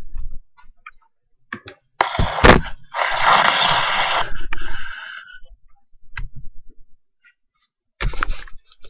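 Rustling and scraping noise close to the microphone, in a loud burst about two seconds in with a sharp click in it, and again briefly near the end.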